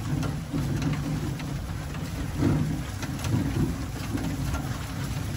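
Wheeled dog-sled cart rolling fast over a gravel trail behind a running husky team: a steady low rumble from the wheels with faint crunches of gravel.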